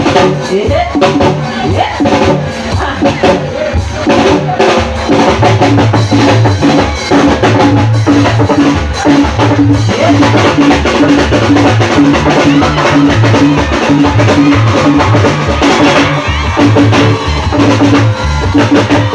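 Loud music with a steady drum-kit beat and a prominent bass line.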